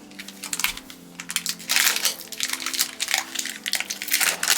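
Foil Pokémon booster pack wrapper being handled and torn open: a run of crisp crinkling and crackling rustles that grows busier about two seconds in.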